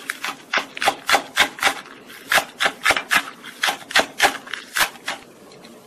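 Kitchen knife slicing a green onion on a wooden cutting board: even chopping strokes, about four a second, stopping about five seconds in.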